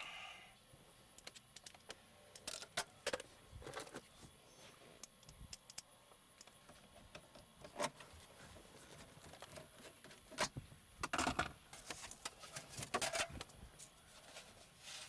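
Scattered light clicks, taps and scrapes of small metal parts being handled in a car's dash while the stereo's mounting screws are fitted, with a short flurry of clicks about eleven to thirteen seconds in.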